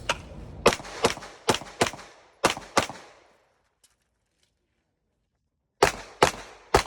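Pistol shots fired rapidly, mostly in quick pairs: seven in the first three seconds, then a pause of about two and a half seconds, then three more near the end. The gun is an open-division competition pistol.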